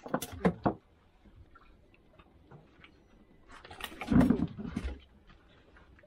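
A small fish being landed on a fishing boat: a few sharp clicks of tackle in the first second, then a louder burst of knocking and rattling about four seconds in as the fish is swung up over the rail.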